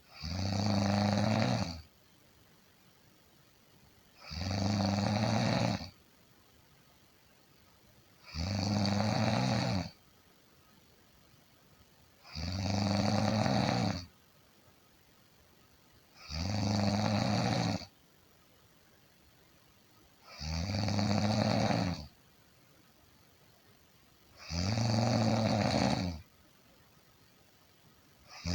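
A person snoring in a slow, even rhythm: a low-pitched snore about every four seconds, each lasting about a second and a half, with quiet between them.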